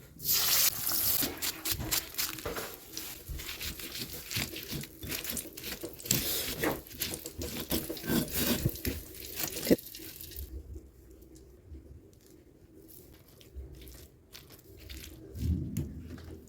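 Battered tempeh frying in hot oil, sizzling with dense crackles that thin out to scattered pops about ten seconds in.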